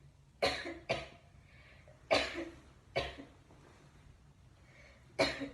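A person coughing: five separate coughs, two close together about half a second in, then single coughs at about two, three and five seconds in.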